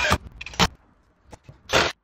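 Four short, sharp scraping sounds about half a second apart as a cordless drill/driver works against a drywall wall.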